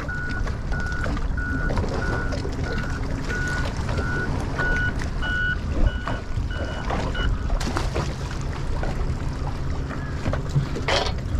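Reversing alarm beeping steadily, a little under two beeps a second, stopping about seven seconds in, over a low rumble of wind on the microphone.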